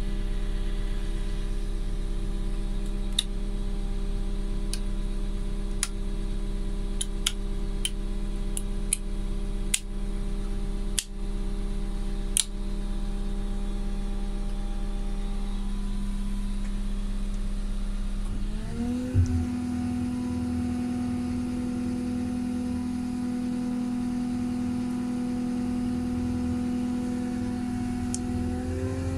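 Caterpillar CW34 roller's diesel engine running steadily, heard inside the cab, with a scattering of sharp clicks in the first half. About two-thirds of the way through the engine note steps up to a higher speed and holds there.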